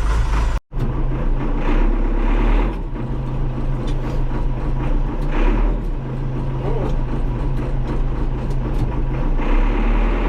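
Engine of an old piece of heavy equipment running steadily, its note shifting slightly near the end. The sound cuts out completely for a moment just under a second in.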